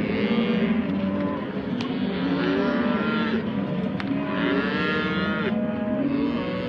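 A large herd of cattle mooing continuously, with many calls overlapping at different pitches, some rising and falling.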